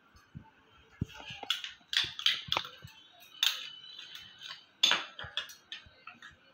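Metal spoon scraping and tapping as paste is spooned from a small bowl into an aluminium pressure cooker: a run of short clinks and scrapes, the sharpest about a second in and near five seconds.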